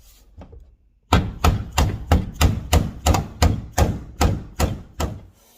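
Hammer blows on a rivet nut: a few faint knocks, a short lull, then about a dozen sharp, even strikes at about three a second.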